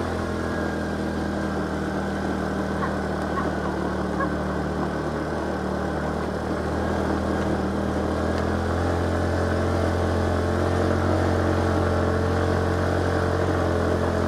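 Vehicle engine running steadily under load while climbing a steep hill road, getting slightly louder about halfway through.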